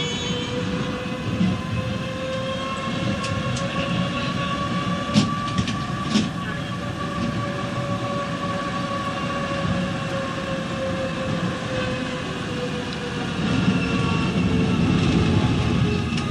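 Heard from inside the car, a 1954 Hansa-built T4b tram on Esslingen bogies runs along the track with a steady rumble from wheels and body. Its traction drive whines at the same time, the pitch rising gently then falling back as it gathers speed and eases off. A couple of sharp clicks come about five and six seconds in.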